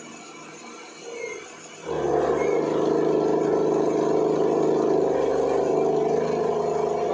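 400 W brushless spindle on a CNC router milling mild steel with a dull end mill: a quieter steady spindle whine, then about two seconds in the cutter bites into the steel and a much louder, steady cutting sound takes over under load. The end mill is not sharp and is burning in the cut.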